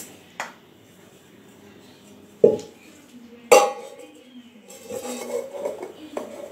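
Stainless steel pot clanking and scraping on a tiled floor as it is handled and tipped, with two loud clangs about two and a half and three and a half seconds in.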